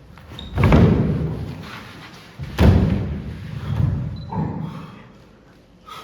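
Two loud thuds about two seconds apart, each dying away over about a second, followed by a couple of weaker knocks.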